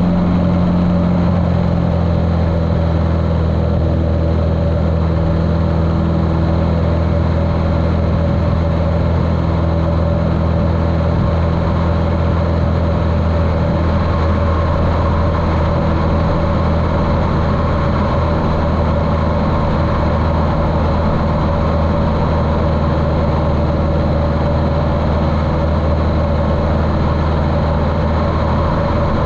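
Cessna 150L's Continental O-200 engine running steadily, heard muffled through a GoPro's waterproof case, with a slight shift in its note about a second in.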